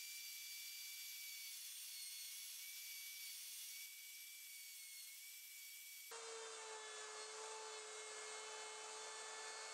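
Ryobi router with a flush trim bit running at speed and cutting along the curved edge of a plywood desk top: a steady high-pitched whine. About six seconds in the tone changes and a lower steady note joins it.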